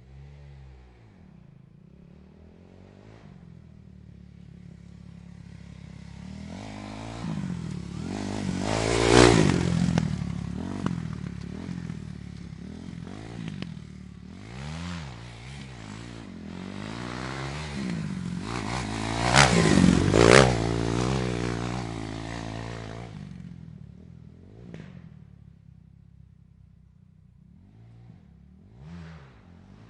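Dirt bikes riding past with engines revving, swelling and fading as they go by; the two loudest passes come about nine and twenty seconds in, with fainter ones near the end.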